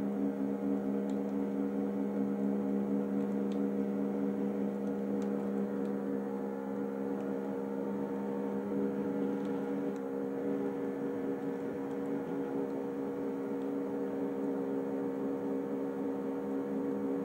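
Steady electrical hum with several fixed tones, unchanging throughout, with a few faint ticks.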